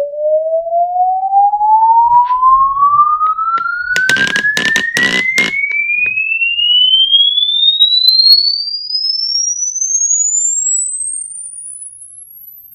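Sine-wave sweep test tone played through a home-theater speaker system: one pure tone gliding steadily upward from about 500 Hz to above 10 kHz, fading near the end. A brief flurry of noisy crackles about four to five seconds in.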